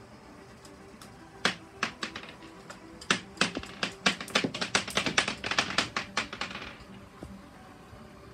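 Glass marbles clicking and clacking against each other and the plastic Lego track as a Lego train pushes into them: a few separate clicks, then a fast run of clicks about three seconds in that thins out and stops near the end, over a faint steady hum.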